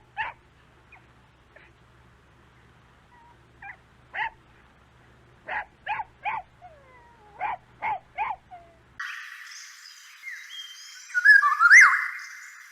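A dog-like animal giving short yips and barks in quick clusters of two to four. About nine seconds in, it cuts to a different recording of high chirping and whistled calls, which are loudest near the end.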